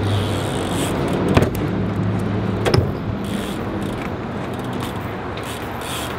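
BMX bikes rolling over the concrete and ramps of a skatepark, tyres and frames rattling, with two sharp knocks about a second and a half apart as they hit ramp edges. Steady road traffic rumbles underneath.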